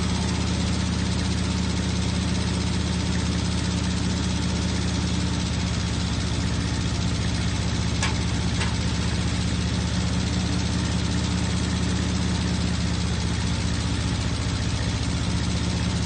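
Portable band sawmill's engine idling steadily, with two light ticks about halfway through.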